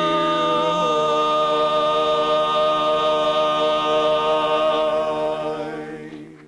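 Barbershop quartet of four men singing a cappella, holding a long closing chord; the lower voices move to a new chord about a second in. The chord then dies away near the end.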